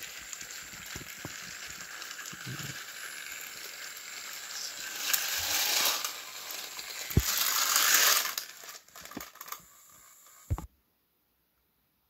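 Rustling and crackling handling noise from a handheld camera being moved. It swells loudly for a few seconds in the middle, with a couple of sharp knocks, then cuts off abruptly near the end.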